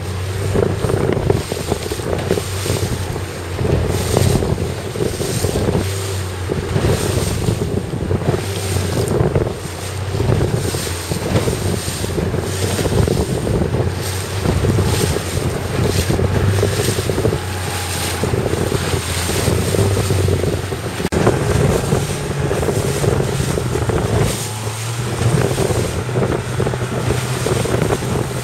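Wind buffeting the microphone and choppy water splashing, over the steady hum of a motorboat's engine whose pitch steps up slightly about three-quarters of the way through.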